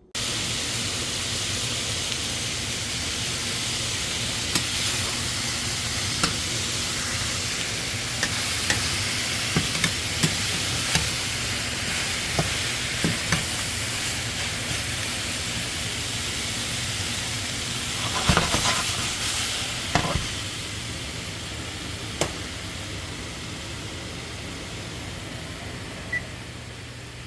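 Vegetables sizzling as they fry in olive oil in a pan, with a utensil clicking against the pan now and then as they are stirred. The sizzle fades slowly near the end.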